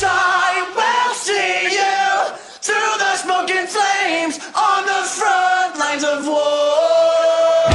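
Post-hardcore song in a stripped-down stretch: sung male vocals, with a chanted, group-like quality, carry the music while the drums and bass drop out, ending on one held note before the full band comes back in.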